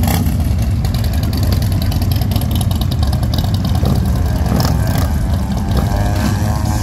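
Several big V-twin cruiser and touring motorcycles, among them a white batwing-faired bagger, idling and pulling away slowly from the curb, their engines running with a steady, deep exhaust note.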